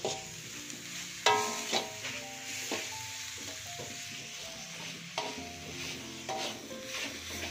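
Spatula stirring and scraping cassava leaves in a metal wok, with a few sharp scrapes and a steady hiss of cooking. Background music plays under it.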